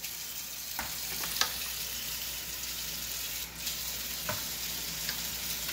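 Kitchen tap running steadily as raw chicken thighs are rinsed, with a few soft knocks as pieces are set down in a metal baking pan.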